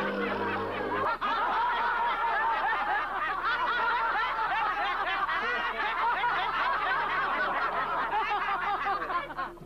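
A group of people laughing and snickering together, many voices overlapping, fading out near the end. Low held music notes sit underneath at the start and again later.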